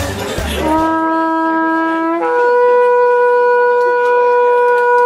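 A shofar sounded in one long blast: a lower note held briefly, then a jump up to a higher note held steadily.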